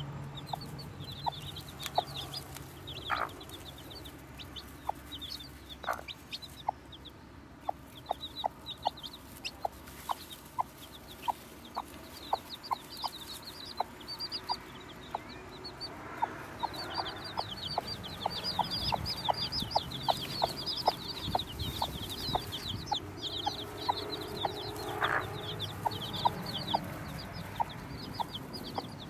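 Newly hatched chicks peeping in quick runs of short, high, falling notes, over a mother hen clucking steadily, about twice a second.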